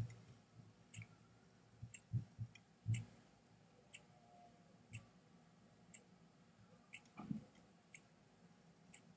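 Quiet dabbing of a makeup blending sponge on the face: a few soft low pats, with a faint regular click about once a second.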